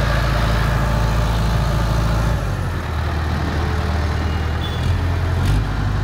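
ACE 16XW pick-and-carry crane's diesel engine running close by. Its note shifts about two and a half seconds in and shifts back near the end, where there is a short knock.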